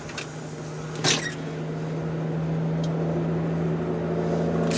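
Car running, heard from inside the cabin: a steady low hum, growing a little louder after about a second, with a single knock about a second in.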